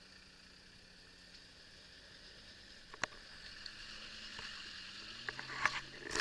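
4x4 engine running at low revs, its pitch rising a little midway. A sharp knock comes about three seconds in, and a cluster of knocks and clatter near the end as the vehicle jolts over rough ground.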